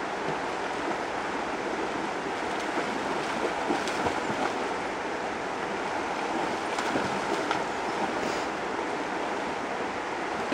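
Shallow, fast river rushing steadily over stones, with splashing from a dog wading through the current, a few splashes a little before the middle and again past it.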